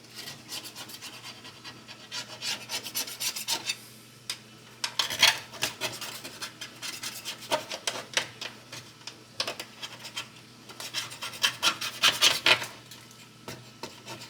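Hand scrubbing of greasy range hood parts with a baking soda paste, a quick back-and-forth rasping rub of several strokes a second in runs, with short pauses between them.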